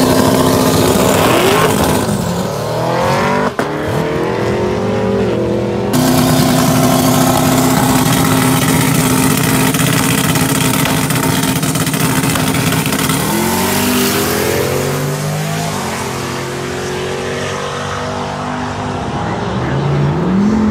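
Twin-turbo 5.3-litre LS V8 in a drag-race Mitsubishi 3000GT, held at a steady high rev on the transmission brake at the starting line with a few rising revs. About two-thirds of the way in it launches, the note rising through the gears and fading as the car runs away down the strip.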